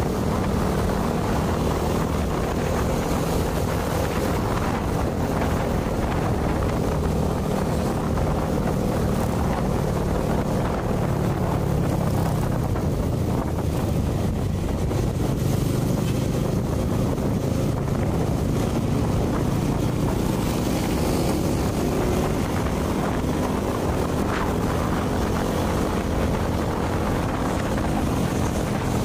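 Motorbike engine running steadily while riding, its drone shifting a little in pitch with speed, under wind noise on the microphone.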